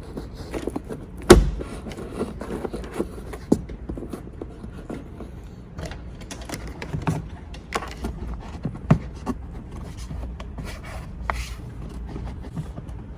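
Plastic car interior trim being handled while a dashcam cable is tucked behind it: scattered clicks and knocks, with one sharp knock about a second in.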